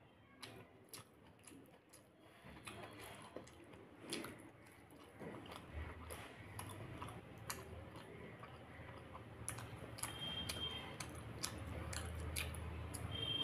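Close-up eating sounds of a person eating dahi pakhala (water-soaked rice with curd) by hand: wet squelching as fingers mix the rice in its liquid, with chewing and small mouth clicks. A low steady hum comes in about halfway through.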